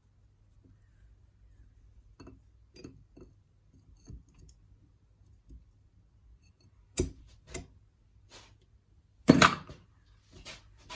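Hand tools and metal engine parts being handled during disassembly: scattered light clicks and clinks, a couple of sharper knocks, and one louder metal clatter about nine seconds in.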